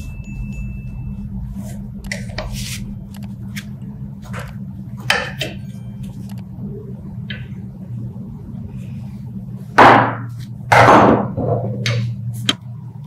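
Scattered light metallic clicks and taps as a flat chisel pries at the cut-off hook of an old iron scale part held in a bench vise, over a steady low hum. About ten seconds in come two loud, rough noises about a second apart.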